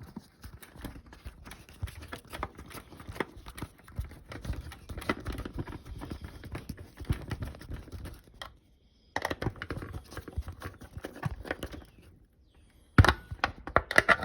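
Irregular clicking and tapping of a screwdriver and metal stove parts as the two screws holding a replacement burner switch are driven in, with two short pauses and a busier run of clicks near the end.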